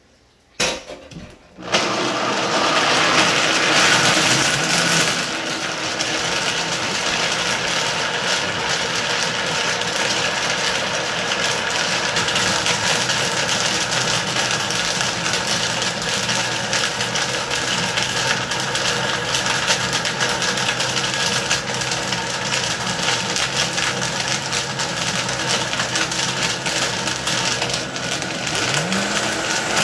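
Vitamix blender running, grinding soaked tiger nuts and water into tiger nut milk. It starts up about two seconds in after a brief first burst, runs steadily, and rises in pitch near the end as the speed dial is turned up.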